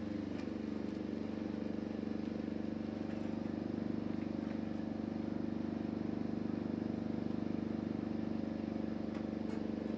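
A vehicle engine running steadily and close by. Its pitch drops just as the sound begins, then holds level with a faint, even pulsing.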